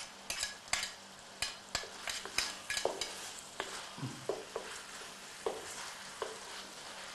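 A wooden spatula stirring and scraping a wok as chopped onion, garlic and lemongrass fry in oil, over a steady sizzle. The scrapes and clicks come quickly for the first three seconds, then more sparsely, with a few short clinks.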